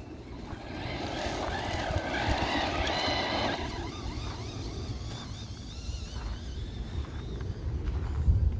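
Traxxas Rustler 4x4 VXL RC truck's brushless electric motor whining as the truck drives, the pitch rising and falling with the throttle and loudest around two to three seconds in, over a steady low rumble.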